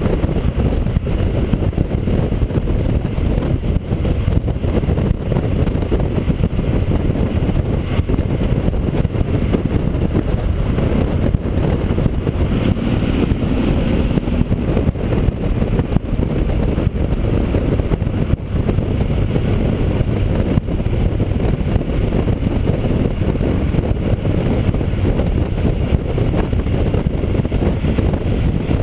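Yamaha XT1200Z Super Ténéré's parallel-twin engine and the rush of wind while riding at steady speed, heard as a steady low rumble through an open-backed GoPro housing on the rider's chest, which lets in heavy wind buffeting.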